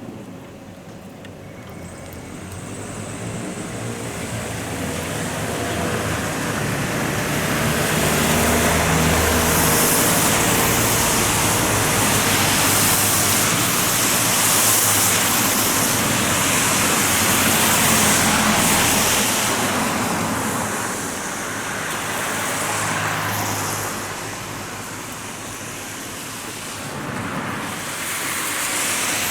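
Electric train passing over a level crossing: the rumble and rail noise build over several seconds, stay loud for about ten seconds, then fade.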